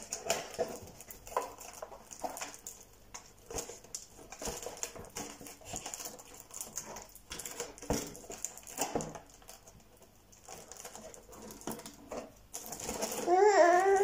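Scattered light taps and clicks at irregular intervals. Near the end comes a louder drawn-out call, wavering in pitch and rising at its start.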